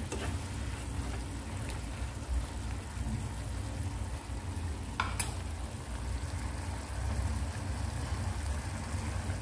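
Food frying in a pan with a steady low sizzle, and one sharp clink of a utensil against the pan about five seconds in.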